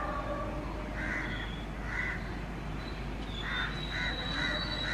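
Crows cawing, short harsh calls repeated every second or less. About three seconds in, a thin steady high squeal from the departing passenger train's wheels sets in under them.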